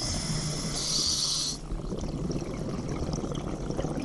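Scuba diver breathing through a regulator: a hissing inhale lasting about a second and a half, followed by a longer bubbling exhale.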